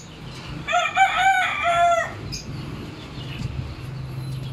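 A rooster crowing once, a single multi-note call lasting just over a second, about a second in.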